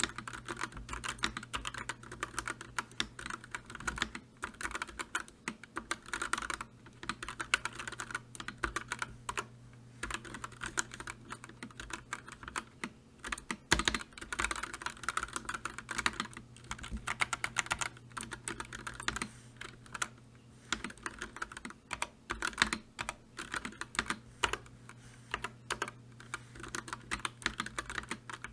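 Computer keyboard being typed on: rapid, irregular key clicks in runs, with short pauses between them and one sharper keystroke about halfway through. A faint steady low hum sits underneath.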